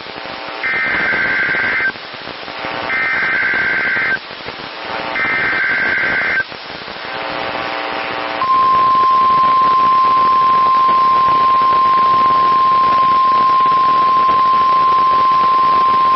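NOAA Weather Radio emergency alert signal received over a weather radio with steady hiss behind it: three short bursts of SAME header data, each about a second long with pauses between. Then the 1050 Hz warning alarm tone sounds steadily from about eight and a half seconds in, sent as a test of the alarm device.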